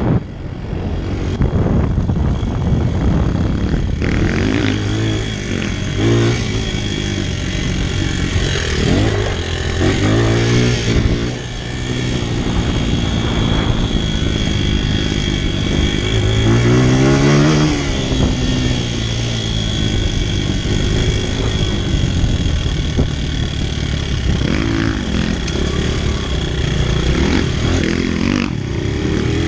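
Honda four-stroke dirt bike engine, heard from the rider's own bike, revving up and easing off again and again, with a long rise in pitch a little past the middle.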